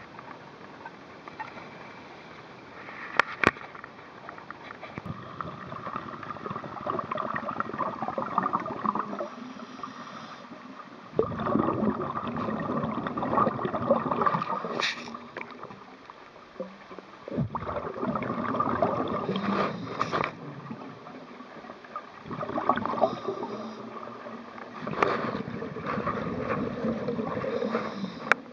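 Scuba breathing heard underwater: the regulator's exhaled bubbles gurgle in long bursts, one every five or six seconds, with quieter gaps between. Two sharp clicks come about three seconds in.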